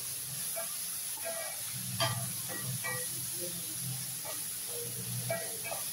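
Chopped onions, curry leaves and green chillies sizzling in oil in a non-stick kadai while a wooden spatula stirs them, scraping across the pan, with one sharp knock about two seconds in.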